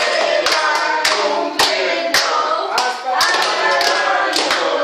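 A group of family members singing a birthday song together while clapping along, about two claps a second.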